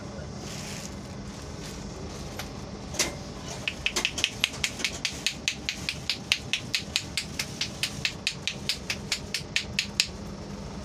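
Head massage percussion: the masseur's hands striking a man's head in a fast, even run of sharp slaps, about five a second, starting a few seconds in and stopping near the end. Under it is the steady low rumble of the moving train.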